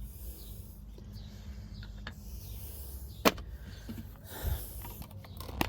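Hand tools being handled and set down, with a sharp clack about three seconds in and another near the end, over a steady low hum.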